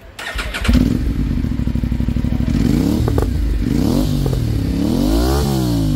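Aprilia RS 457's parallel-twin engine, breathing through a long carbon R1M-style aftermarket muffler held on by hand, starts about half a second in and idles. It is then blipped three times, the last rev going highest.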